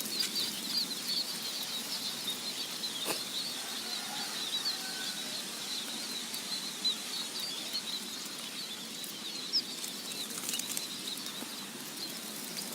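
A flock of sparrows chirping continuously in many quick, high notes, with a few short knocks.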